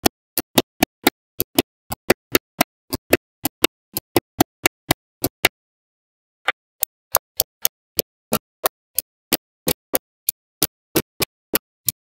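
Small neodymium magnetic balls clicking sharply as they snap onto a wall of magnet balls, one crisp click after another at about four a second, with a pause of about a second midway.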